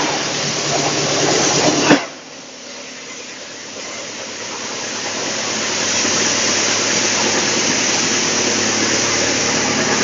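Drum wood chipper running with a steady machine noise and hum. About two seconds in there is a sharp click and the sound drops abruptly to a lower level, then grows steadily louder again over the next few seconds.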